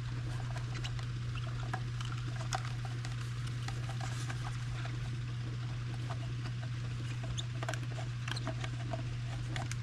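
Light plastic clicks and scrapes, scattered and irregular, as the plastic housing parts of a fuel pump assembly are handled and fitted together. A steady low hum runs underneath.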